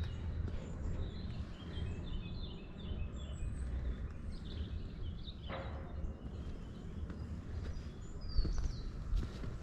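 Several songbirds chirping and singing in quick runs of short high notes, over a steady low rumble.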